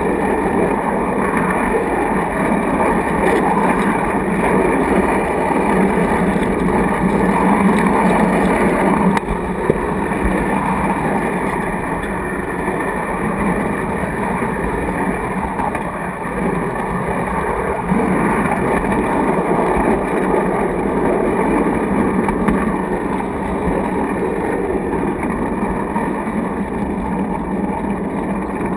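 Steady, loud running noise of a 7/8n2 garden-scale model passenger car rolling along its track, heard from a camera riding inside the car.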